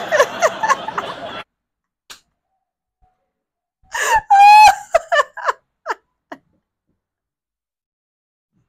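A woman laughing hard, with high-pitched gasping squeals, starting about four seconds in and lasting a couple of seconds. Before that, a stand-up comedy recording stops abruptly just over a second in, leaving a silent gap.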